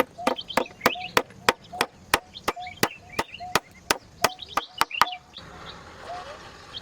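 Rapid, steady chopping with a blade, about three sharp strikes a second, stopping about five seconds in, with birds chirping in the background.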